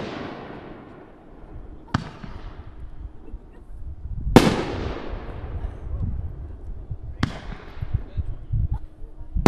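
Boomin Bulldog "Blue Hurricane" firework shells bursting in the air with loud bangs: a sharp crack about two seconds in, the loudest bang a little after four seconds, and another crack near seven seconds, each trailing off in an echo.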